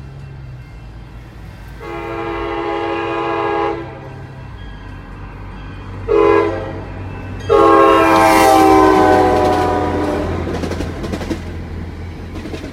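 MBTA train horn sounding a multi-note chord: a long blast, a short one, then a long one whose pitch drops near its end as the train goes by, the close of a grade-crossing horn signal. Under it and after it the train passes with a low rumble and clickety-clack of wheels on rail joints.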